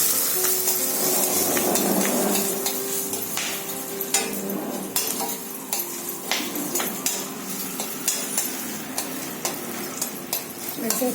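Green chillies frying and sizzling in hot groundnut oil with tempered cumin and fenugreek, stirred in the pan with a spoon that clicks and scrapes against it. The sizzle is loudest for the first couple of seconds, then settles into a quieter hiss broken by frequent sharp pops and clicks.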